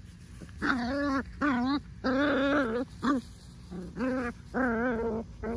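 Miniature pinscher puppies play-fighting, one giving a run of about seven short, wavering whiny cries in quick succession, starting about a second in.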